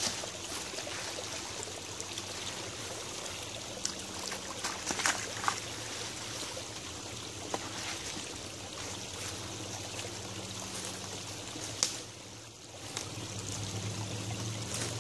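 Shallow creek water trickling while a wooden branch scrapes and prods through wet leaves and mud in the creek bed, with scattered sharp clicks and knocks from the stick.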